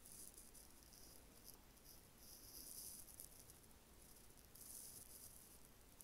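Near silence: faint room tone, with soft high-pitched hiss that comes and goes twice.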